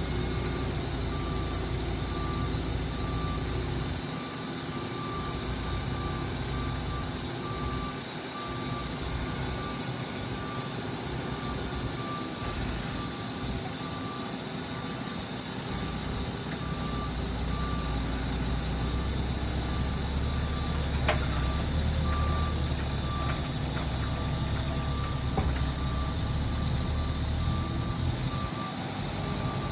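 Reversing alarm beeping at an even pace over a running engine of heavy farm machinery; the engine gets louder about halfway through.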